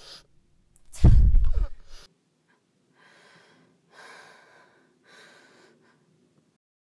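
A young woman gasps loudly about a second in, then breathes heavily three times, about a second apart, each breath fainter.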